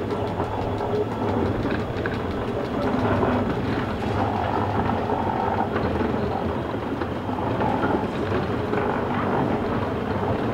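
Schynige Platte Bahn He 2/2 electric rack locomotive, built 1914, passing with its open coaches: a steady running noise of the train on the rails, holding an even level throughout.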